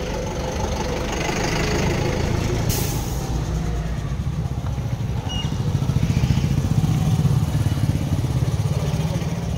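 Small commuter motorcycles riding past close by, their engines running with a low rumble that grows loudest about six seconds in. A short hiss comes about three seconds in.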